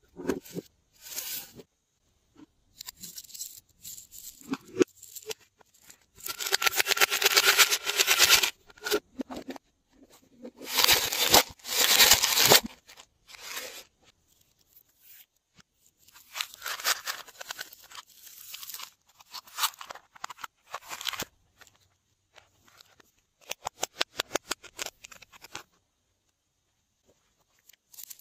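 Small plastic toy containers being opened, and their glitter, sequins and little decorations shaken out onto slime in plastic trays: bursts of crackling rattle and clicks with quiet gaps between. The longest bursts come about a quarter and two fifths of the way in.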